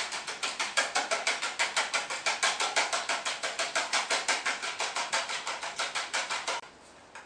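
Wire whisk beating eggs and milk in a ceramic dish: a fast, steady clatter of about six strokes a second against the dish, stopping near the end.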